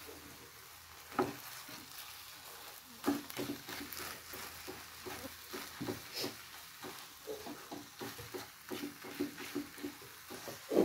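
Wooden spatula stirring and scraping thick, sticky psyllium-husk halwa around a nonstick frying pan: irregular soft scrapes and knocks over a faint sizzle of ghee in the pan.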